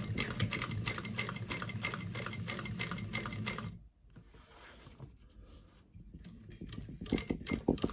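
Sewing machine stitching seatbelt webbing, a rapid steady run of needle strokes over the motor hum that stops about four seconds in, followed by a few light clicks near the end.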